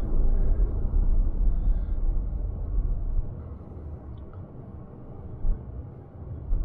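Inside a car driving slowly over a snow-covered street: a steady low rumble of tyres and engine that eases off about three seconds in, with a couple of soft knocks near the end.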